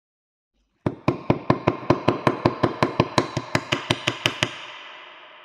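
Quick, even hammer blows on a metal wire laid across a steel nut clamped in a vise, flattening the wire: about twenty sharp metallic strikes at roughly five a second, starting about a second in, with a metallic ring that lingers and fades after the last blow.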